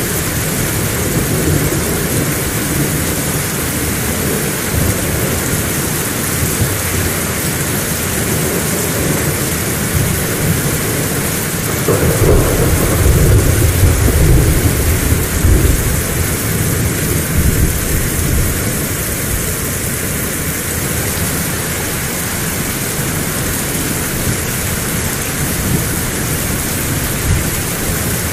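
Heavy rain falling steadily, with a low rumble of thunder swelling about twelve seconds in and rolling on for a few seconds before fading back under the rain.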